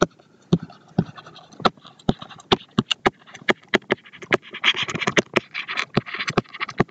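Stylus tapping and scratching on a tablet screen during handwriting: a run of sharp, irregular clicks, about three or four a second, with a denser stretch of scratchy noise a little past the middle.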